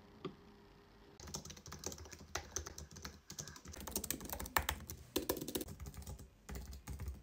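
Typing on a low-profile Apple Magic Keyboard: after a single key click near the start, a fast, dense run of soft key clicks begins about a second in and carries on.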